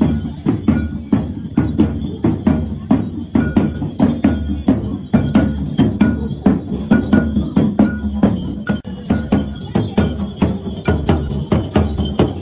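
Percussion music for the Kabasaran war dance: a fast, even beat of sharp strikes over a low steady drone, with a short ringing note recurring every second or so.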